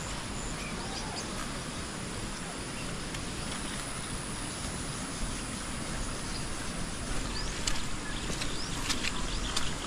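Steady outdoor ambient noise, with a few faint short chirps and clicks in the last few seconds.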